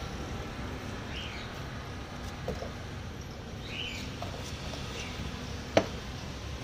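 Steady low street-traffic rumble with a few short, faint high chirps. A single sharp knock stands out about six seconds in, during the pineapple cutting over the steel pot.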